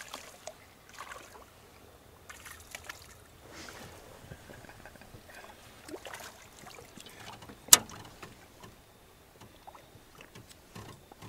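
Quiet handling sounds in a small fishing boat: faint water noise with scattered light knocks and clicks. One sharp click about two-thirds of the way in is the loudest sound.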